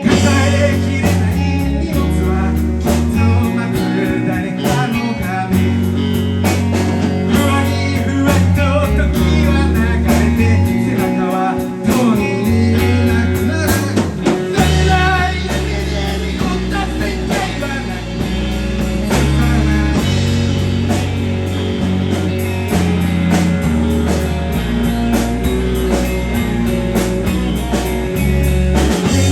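Live blues-rock band playing: electric guitar, bass and drums, with singing.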